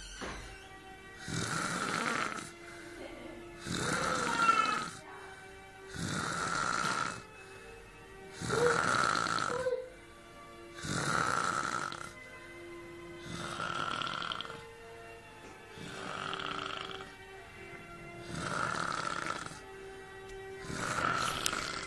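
A sleeping man snoring, with a rasping snore on each breath in a steady rhythm of about one every two and a half seconds, some nine snores in all.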